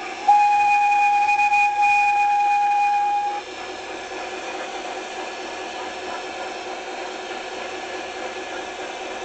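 Locomotive whistle on the Thomas engine giving one long single-pitched blast of about three seconds, which cuts off sharply. A steady, quieter rumble follows.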